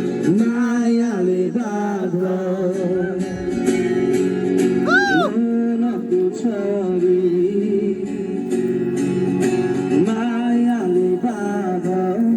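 A man singing a song over guitar accompaniment.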